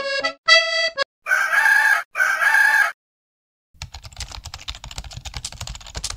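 Accordion music ends about a second in, then a rooster crows once, in two long hoarse parts. After a short silence comes a fast, dense run of clicks or taps.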